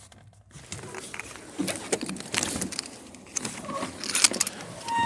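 Irregular clicks, knocks and rustling of hands handling things, with a short electronic beep at the very end.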